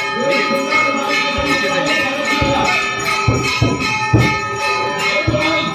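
Temple bells ringing continuously for the aarti, with several low thumps in the middle.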